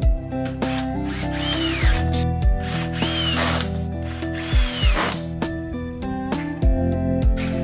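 Power drill run in three short bursts, its whine rising and then falling each time, with several heavy low thumps, over background music.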